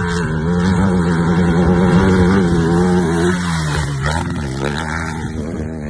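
Dirt bike engine held at high revs; about three and a half seconds in the revs drop briefly, then pick up again.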